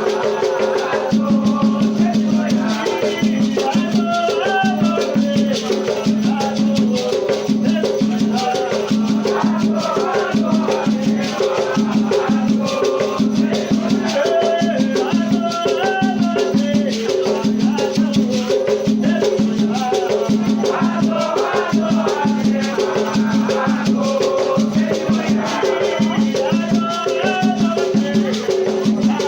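Batuque ritual music: drums and shaker rattles keep a steady, fast rhythm under chanted singing for Oxalá and Xapanã.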